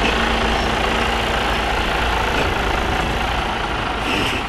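Diesel engine of an articulated lorry running at low speed as the tractor unit and curtain-sided trailer pull slowly past at close range, a steady heavy sound with tyre noise.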